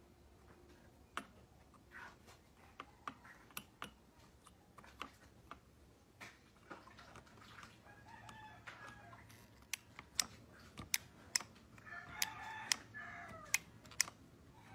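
Irregular small sharp clicks and taps of metal tools on an iPhone logic board, coming faster and louder in the second half. Faint pitched calls from a bird in the background come twice.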